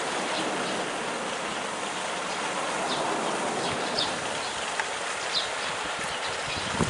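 Steady rushing of flowing river water, with a few faint short high chirps and one sharp click near the end.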